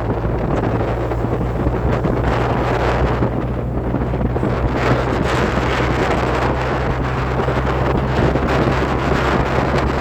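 Wind buffeting the microphone in gusts, over a steady low hum.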